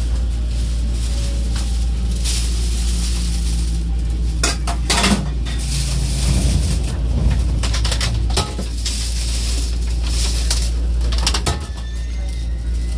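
Cabin running sound of an E257 series 2000 electric train braking along a platform to a stop: a steady low rumble with the faint hum of its Mitsubishi IGBT inverter and traction motors. A few sharp clanks and knocks come about five seconds in, near eight seconds and near eleven and a half seconds.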